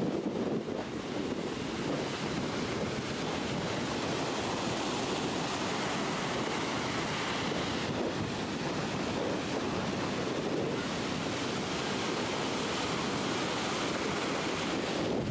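Rough surf breaking and washing up a sandy beach, churned up by an approaching hurricane, with strong wind buffeting the camcorder microphone. The noise is steady and continuous.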